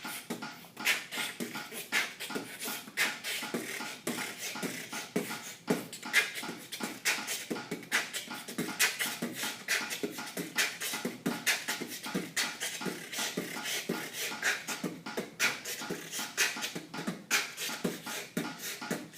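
Solo human beatboxing at a fast tempo of about 160 beats per minute: a dense, driving run of mouth-made drum hits.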